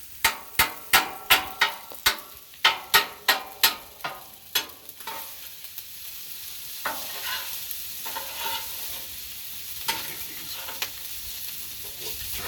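Metal spatulas clacking sharply against a steel flat-top griddle while mixing fried rice, about a dozen quick strikes at roughly three a second. About five seconds in they give way to a steady sizzle of the rice frying, with only a few light scrapes.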